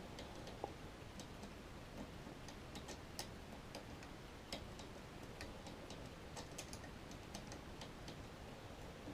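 Faint, irregular small metallic clicks of a lever lock pick working inside a lever mortice deadlock, the levers being lifted one at a time.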